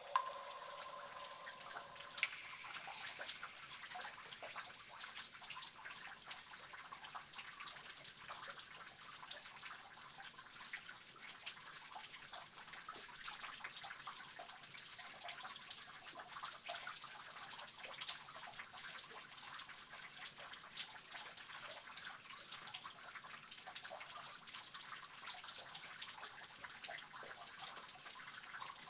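Water dripping and trickling in a cave: a steady, dense patter of many small drops, with one sharper knock about two seconds in.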